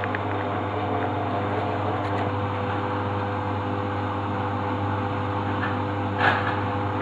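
Washing machine running steadily with a constant motor hum as the drum turns after balancing its load, just before the spin. A brief louder swish comes about six seconds in.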